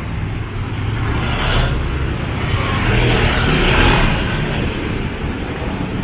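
Road traffic: motor vehicles passing close by, with a steady low rumble and one vehicle swelling louder about three to four seconds in.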